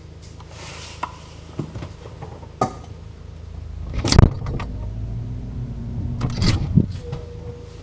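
Refrigerator running with a steady low hum, heard from inside the fridge, broken by a few light knocks and then a louder burst of knocking and rustling about four seconds in, with two more sharp knocks a little before the end.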